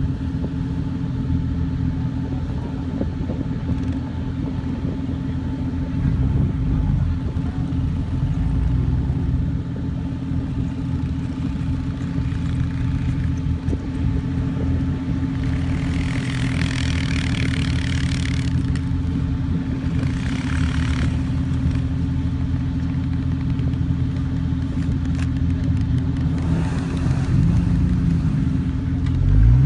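Off-road 4x4 vehicle engine running steadily, with two short bursts of hiss about halfway through. The engine's pitch rises near the end.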